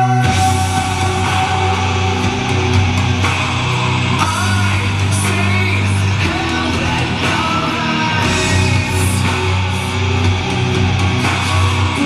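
Rock song with a singer, guitars and drums, played loud through a Sharp XL-HF201 micro hi-fi system and its pair of bookshelf speakers. The full band kicks in right at the start, after a held chord.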